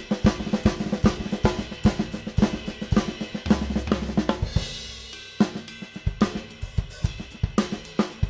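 Drum kit played in a fast, busy pattern of snare flams and triplet figures with bass drum, hi-hat and cymbals, combining Swiss Army triplet variations. A cymbal crash over a bass drum hit lands about four and a half seconds in.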